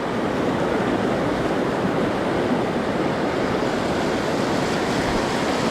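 Steady rushing of a mountain river's current flowing past.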